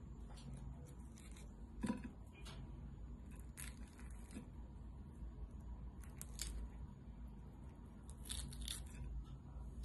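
Skewers being pulled out of roasted chicken drumsticks, the crisp skin and meat crackling and tearing in a few short separate scrapes. The loudest is about two seconds in, with a quick cluster near the end.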